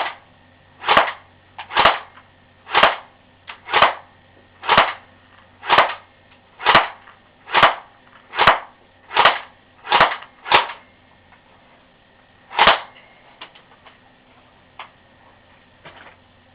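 Airsoft gun fired in single-shot mode: about fifteen sharp shots at roughly one a second, stopping about 13 seconds in as the magazine is emptied.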